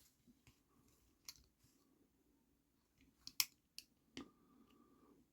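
Small plastic toy parts clicking and tapping as they are handled and fitted together: a few sharp clicks, the loudest pair a little past halfway, over near silence.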